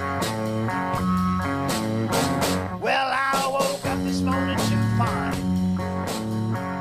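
Blues-rock music with electric guitar over a steady bass line and drum beat, a bending lead guitar phrase about halfway through.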